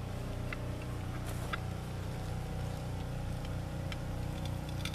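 Steady low engine-like hum from an unseen motor, with a few light metal clinks as a lid lifter hooks and raises a charcoal-covered cast iron Dutch oven lid.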